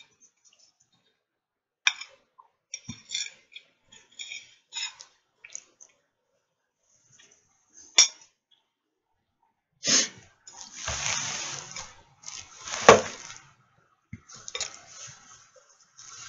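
Eating at a plate of beef ribs: scattered small clicks and clinks of a plate and cutlery, then a few louder rustling, scraping bursts about ten to thirteen seconds in.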